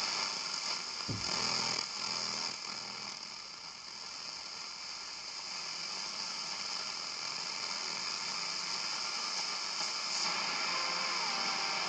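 Braun SK25 tube radio on the AM band giving a steady hiss and static from its loudspeaker, with a faint whistle that drops in pitch near the end. This is the sign of its very deaf AM section, which pulls in hardly any station.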